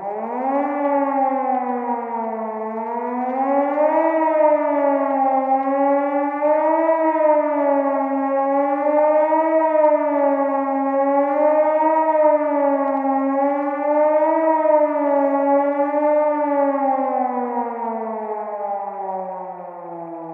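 Civil-defence warning siren giving a wavering wail: it winds up over the first second, then swoops up and down about every two and a half seconds, and winds down in falling pitch over the last few seconds.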